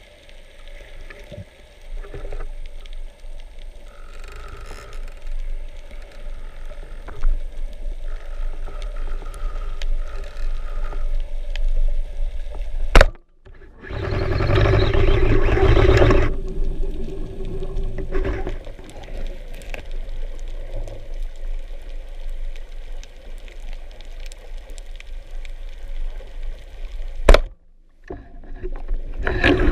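Underwater water noise: a steady rush with faint hums, growing louder about halfway through into a short stretch of dense bubbling, and broken twice by a sharp click and a moment of silence.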